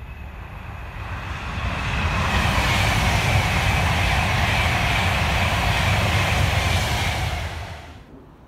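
Passenger train passing close by at speed on electrified main line: a loud rushing of wheels on rail and air, with a high whine drifting slightly down in pitch. The noise builds over the first two seconds and cuts off suddenly near the end.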